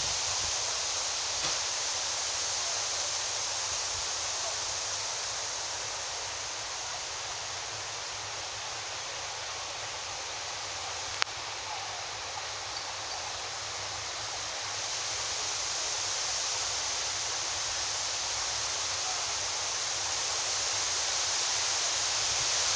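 Strong wind blowing through tree leaves: a steady rushing hiss that eases a little in the middle and builds again near the end, with one sharp click about eleven seconds in.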